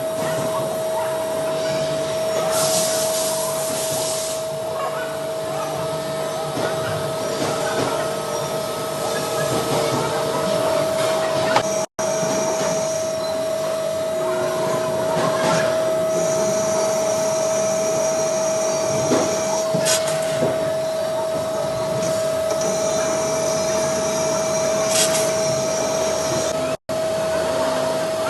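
CNC machine running: a steady whine over a constant mechanical hiss, with higher cutting whines coming and going. The sound cuts out for an instant twice, about twelve seconds in and near the end.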